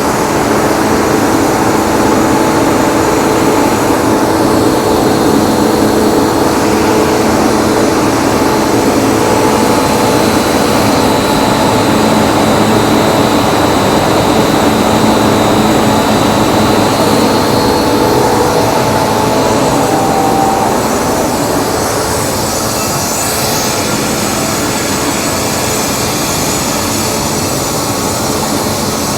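250 hp two-stage screw air compressor running under test: a loud, steady machine drone with several steady hums and a high whine. It drops slightly in level about three quarters of the way through.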